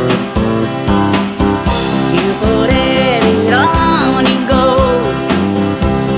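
Country-rock song: guitar and a steady beat, with a melody line gliding between notes above them.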